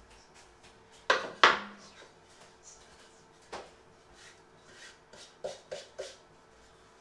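Sharp knocks and clatters of kitchen things being handled: two loud knocks in quick succession a little after a second in, a softer one near the middle, then three light knocks close together near the end.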